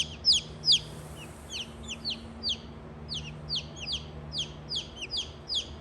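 Baby chicks peeping: a quick series of short, high-pitched calls that each fall in pitch, about three a second, over a faint steady low hum.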